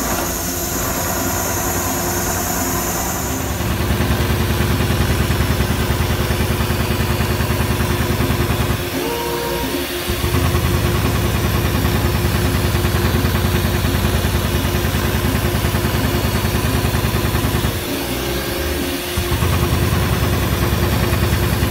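Richpeace automatic perforation and sewing machine running, its needle head stroking in a rapid even rhythm over a steady hum. The strokes stop briefly about nine seconds in and again about eighteen seconds in, then resume.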